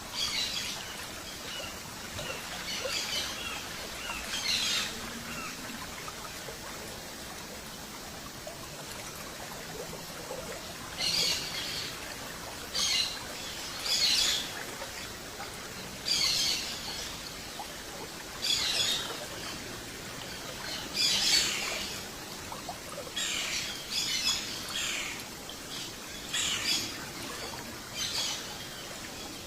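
Birds calling in short, high chirping phrases, one every second or two, over a steady background hiss.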